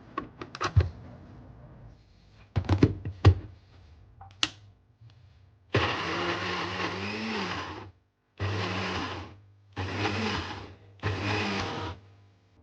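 A few sharp clicks and knocks of kitchen items being handled, then an electric kitchen blender run in four short pulses: the first about two seconds long, the next three about a second each.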